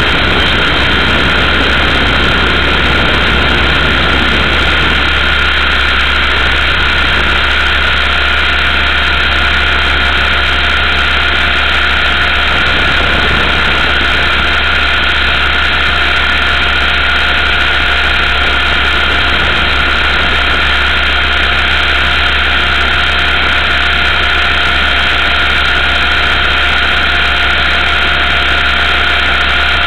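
Multiplex Funcopter RC helicopter's electric motor and rotor running steadily in flight, a continuous whine with a couple of held tones over a low hum. A further lower tone joins about eight seconds in. The sound is thin and muffled, as picked up on board and sent over the FPV video link.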